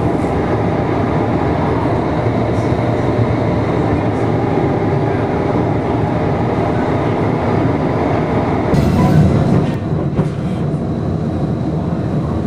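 Streetcar running along its track, heard from inside the passenger car: a steady rumble and hiss of the moving car. About nine seconds in, a louder rushing noise lasts for about a second.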